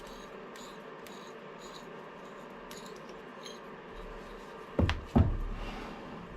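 Two sharp knocks about half a second apart near the end, metal tooling being handled and set down at a lathe, over a faint steady workshop hum.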